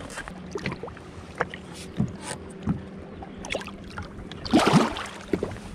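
Scattered knocks and handling noises on a fishing boat over a steady low hum, with a short, louder burst of noise about four and a half seconds in.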